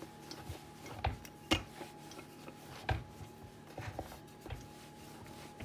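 Wooden rolling pin rolling out bread dough on a wooden board, with a few irregular knocks as the pin and hands bump the board, the loudest about one and a half seconds in.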